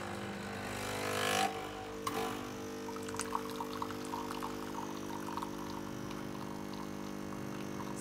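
Nespresso Creatista Plus pod machine brewing an espresso shot: its pump hums steadily while coffee pours into the mug. A hiss swells over the first second and a half, then settles, with small crackles through the pour.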